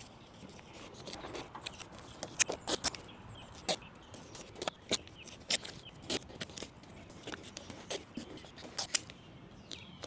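Masking tape being handled and applied around a car headlight: irregular sharp clicks and crackles, a few a second.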